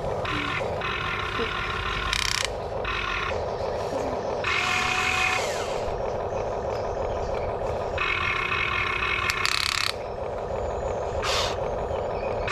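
Electric motors of a Huina RC excavator whining in short bursts that start and stop sharply as the boom, arm and bucket are driven to dump a load into a toy dump truck, over a steady low hum.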